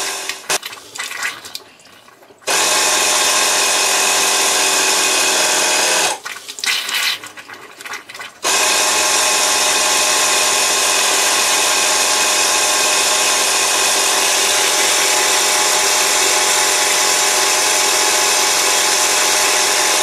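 Small 12-volt air compressor of the Floë drain-down unit starting about two and a half seconds in and running with a steady whine. It is repressurizing the plumbing while an open kitchen faucet spits out the last water and air. It pauses for about two seconds around six seconds in, then starts again and runs on.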